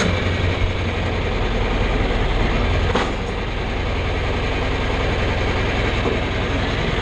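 Farm tractor engine running at low speed while moving a hay wagon, with rattling and clanking from the wagon and hitch. There is a click about three seconds in, after which the engine gets a little quieter.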